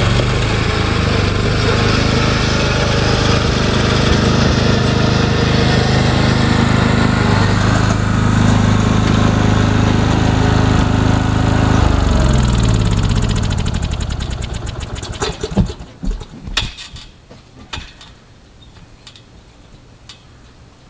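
Lawn mower engine running steadily, then winding down in pitch about twelve seconds in and dying out. A handful of sharp knocks follow as it stops.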